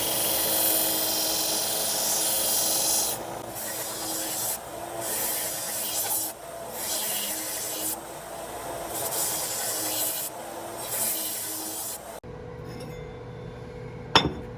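Abrasive hand strokes on a hatchet, rubbing back and forth in slow, even strokes about every second and a half after a few seconds of steady hiss. Near the end the sound changes to a quiet steady hum with one sharp click.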